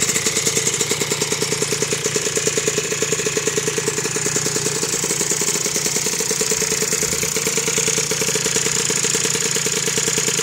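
Vespa Ciao moped's freshly built two-stroke Malossi 65cc engine, fed by a Dellorto 12.12 carb and breathing through a Techno Circuit expansion pipe, idling on the stand with a fast putter. The idle is a little lumpy at first and evens out about four seconds in. The engine is still untuned.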